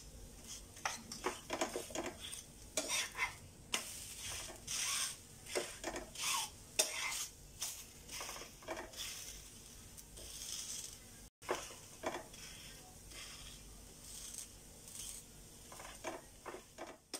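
Spatula scraping and tapping on a non-stick tawa, in irregular short strokes, as a thin batter crepe (soru chakli) is loosened and turned, with a faint sizzle of the crepe cooking in butter.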